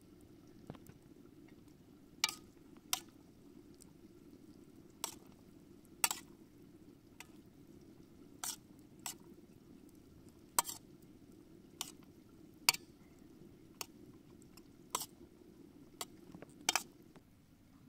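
Metal spoon clinking and scraping on a stainless steel platter as rice is spooned and spread on it: about fifteen sharp taps at irregular intervals, roughly one a second.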